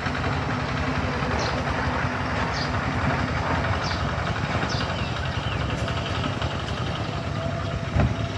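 Steady rumbling background noise, with short high chirps about once a second and a single thump near the end.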